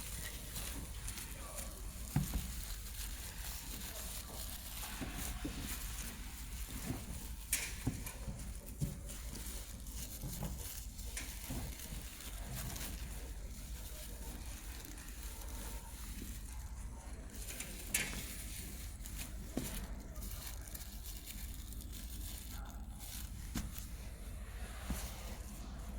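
Steady low machine hum and hiss with scattered sharp clicks and knocks.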